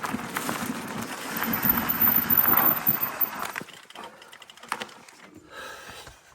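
Specialized S-Works Turbo Kenevo SL 2 e-mountain bike riding over a forest trail: tyre noise with rattling knocks from the bike. A little past halfway it drops to a much quieter stretch of fine ticking and a few clicks.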